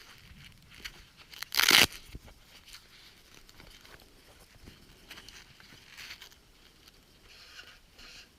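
Close handling of dry, crinkly material: small crunches and rustles, with one short, loud, harsh scrape or tear about a second and a half in.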